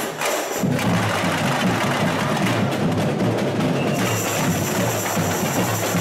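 Samba school bateria playing a driving samba rhythm, tamborins clicking over the deep drums. The deep drums drop out for about half a second at the start, then come back in.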